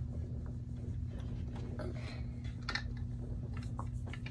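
A few faint clicks and taps of plastic dollhouse toys being handled, over a steady low hum.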